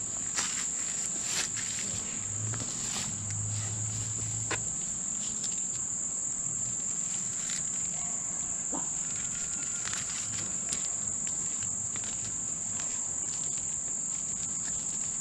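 Crickets trilling in a steady, high, unbroken chorus, with scattered light rustles and clicks of milkweed leaves being handled.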